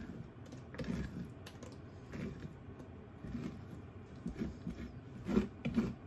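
Metal scoop scraping the inside of a pumpkin, loosening the stringy pulp and seeds in soft, irregular strokes, with a few louder scrapes near the end.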